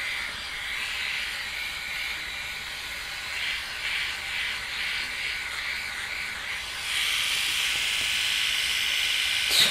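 Flawless Legs battery-powered electric shaver running, its small motor giving a steady high whirr as its rotary heads are worked over the leg. The whirr grows louder about seven seconds in, and a short click comes near the end.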